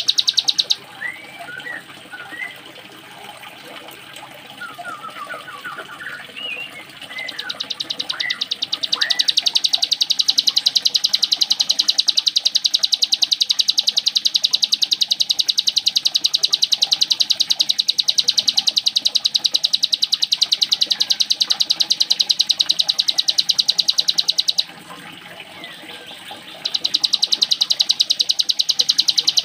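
Ciblek gunung (mountain prinia) singing its 'ngebren' sewing-machine song: a loud, very fast, even rattle of high notes held for long stretches. Between the rattles come short scattered chirps, with a pause of about two seconds near the end before the rattle resumes.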